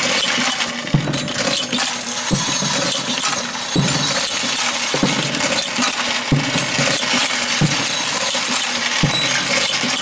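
Camdex automatic multi-station press running through its cycle, the tool heads striking with a sharp knock about every 1.3 seconds, each stroke followed by a short low mechanical hum, over a steady machine hiss.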